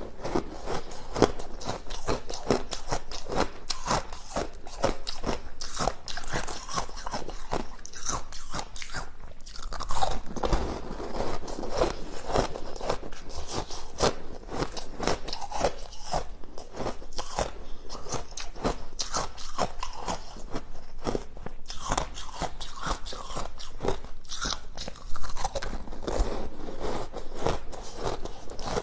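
Frozen shaved ice being bitten and chewed, a continuous dense crunching of ice between the teeth, with a few louder bites along the way.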